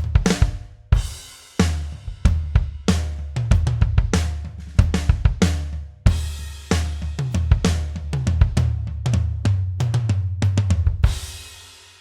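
Sampled acoustic drum kit from a Pearl Mimic Pro electronic drum module, played as a steady groove of bass drum, snare, hi-hat and cymbals. It ends on a cymbal crash that rings out and fades.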